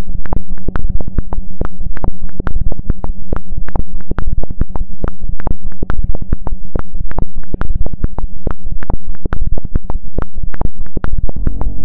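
Experimental electronic soundtrack: loud, irregular clicks and crackles, several a second, over a steady low droning hum. Near the end a layer of higher steady tones joins the drone.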